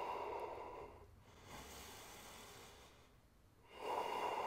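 A man breathing slowly and audibly while holding a yoga back bend. One breath fades out about a second in, a fainter one follows, and another starts near the end.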